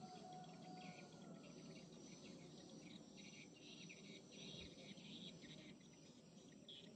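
Near silence: faint outdoor ambience with insects chirping in quick, irregular pulses.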